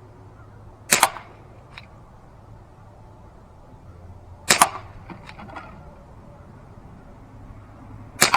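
Umarex UX 357 CO2 BB revolver firing three shots, each a sharp pop, about three and a half seconds apart. A fainter tick follows the first two shots less than a second later, the BBs striking the milk-jug targets.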